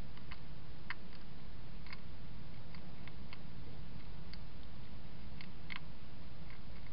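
A European hedgehog eating from a dish. Its chewing comes through as irregular sharp clicks over a steady low hum.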